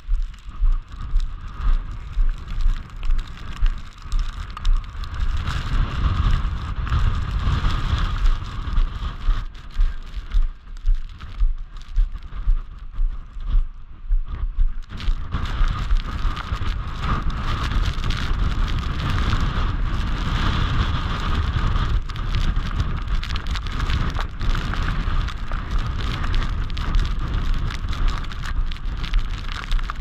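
Footsteps crunching through snow at a walking pace, about two a second, over wind buffeting the microphone in a snowstorm. The steps stand out in the first few seconds and again around the middle, and the rest is a steadier rumble and hiss of wind.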